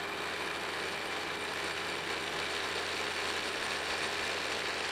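End mill on a PM-727 milling machine cutting across the ends of steel-stock vise jaws in a conventional-milling pass about 15 thousandths deep: a steady, gritty cutting chatter as the table feeds the work past the cutter.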